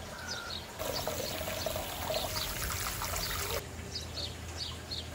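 Hot-spring water trickling and pouring steadily into an open-air rock bath.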